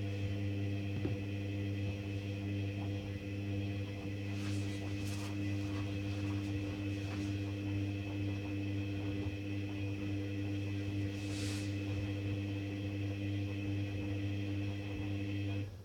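Hoover Dynamic front-loading washing machine in its main wash with a very sudsy load: the motor hums steadily as it turns the drum, with a few brief swishes, then stops suddenly near the end.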